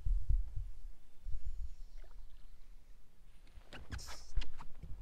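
Dull low thumps and rumble on a bass boat as an angler works a fishing rod, with a few sharp clicks and a brief hiss about four seconds in.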